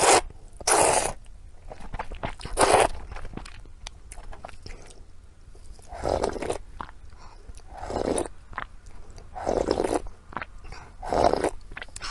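Close-miked eating of pork intestines: seven loud wet bites, one every one to three seconds, with softer chewing clicks between them.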